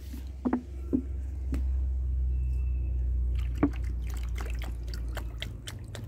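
Water poured from a plastic bottle into a small plastic dish: splashing and crinkling of the bottle through the second half. Under it runs a steady low engine hum, the loudest sound, with a few knocks near the start.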